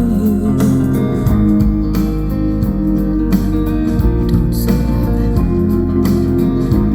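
A pop-rock song with strummed guitar, heavy bass and drums, in an instrumental passage without singing, played through a Bluetooth speaker with twin 6.5-inch subwoofers.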